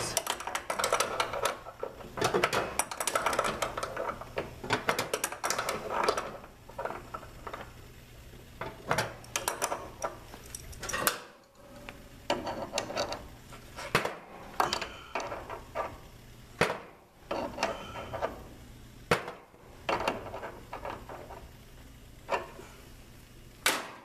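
Irregular metal clicks and clinks as a hand tool works at the brass service-valve fittings and caps of an air conditioner's outdoor condensing unit. They come thick for about the first six seconds, then as scattered single clicks.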